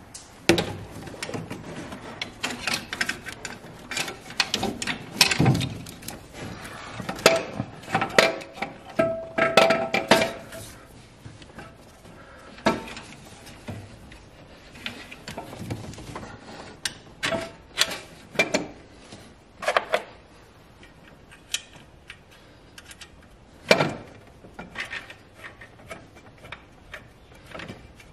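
Irregular metal clanks, knocks and scrapes from a turbocharger and cast-iron exhaust manifold being worked into place in an engine bay, with a short metallic ring about nine seconds in and one louder knock near the end.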